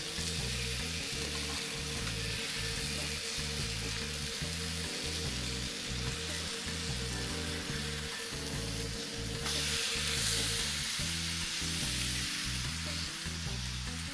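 Boneless chicken pieces sizzling steadily as they fry in hot oil, the sizzle growing louder about nine and a half seconds in.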